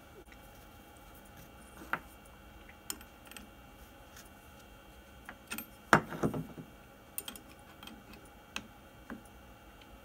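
Scattered small metal clicks and clinks of open-end wrenches being handled on a CNC router's collet nut while a new bit is tightened, the loudest clink about six seconds in followed by a few quick taps.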